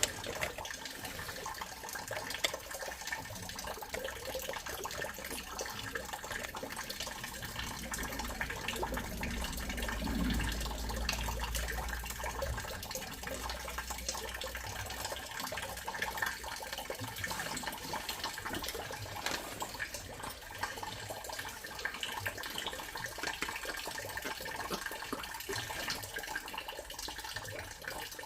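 Water running steadily, with a low rumble from about eight to fifteen seconds in.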